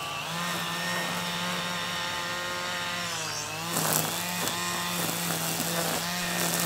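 Milwaukee M18 cordless string trimmer running with a steady whine. About three seconds in, the pitch dips as the line bites into grass, then many sharp ticks follow as the spinning line strikes grass and debris along the patio edge.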